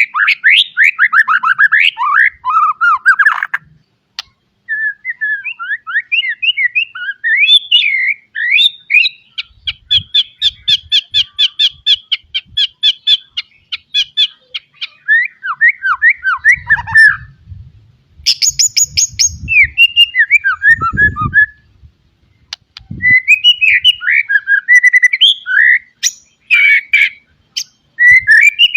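White-rumped shama (murai batu) singing a long, varied song packed with mimicked phrases: loud whistles, trills and chatter broken by short pauses, with a long run of fast repeated notes partway through. Faint low knocks sound under the song in the middle part.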